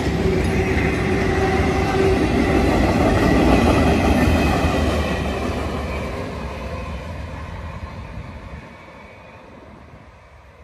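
Empty freight cars of a passing train rolling by on the rails, the wheel and car noise loudest around the middle of the first half, then fading steadily as the end of the train moves off down the track.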